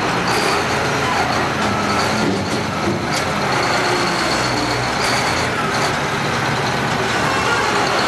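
Large Caterpillar wheel loader's diesel engine running steadily. A thin high tone joins about five seconds in.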